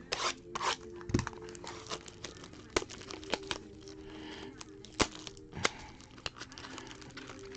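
A pack of Panini Absolute basketball cards being torn open: the wrapper tears and crinkles, with a run of irregular sharp snaps and clicks.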